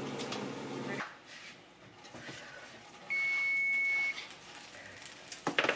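A single steady electronic beep, about a second long, from the electric range's oven control panel, followed near the end by a couple of knocks as the baking tray is handled.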